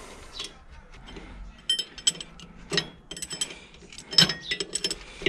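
Irregular metal clinks and clicks as a tractor PTO driveshaft yoke is worked by hand on the splined input shaft of a rotary tiller. The clinks begin about two seconds in, with the sharpest about four seconds in.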